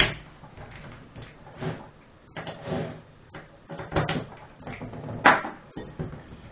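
A sliding-gate rack fitted with aluminium tooth segments being handled on a wooden tabletop: scattered scrapes and clunks, with a sharp knock about five seconds in.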